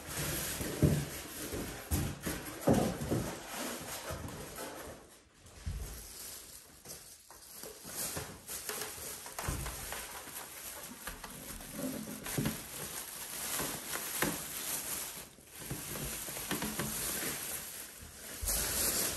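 Plastic wrapping rustling and crinkling as a large figure is pulled out of its bag and handled, with a few short knocks.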